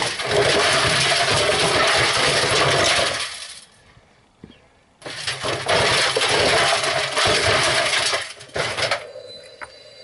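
LG front-loading washing machine drum turning with tin and scrap metal loaded inside, filling it with a loud, continuous metallic clattering and banging. The drum stops about three and a half seconds in, the clatter starts again at five seconds, and it dies down to a quieter hum with faint steady tones near the end.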